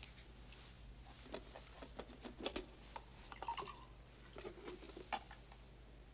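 Faint, irregular small clicks and taps of objects being handled, busiest around the middle and ending with a sharper tap about five seconds in, over a low steady hum.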